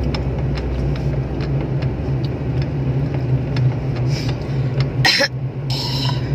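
Steady low drone of a car's engine and tyres heard from inside the cabin while driving on a concrete road, with light scattered ticks and rattles. A person coughs briefly about five seconds in.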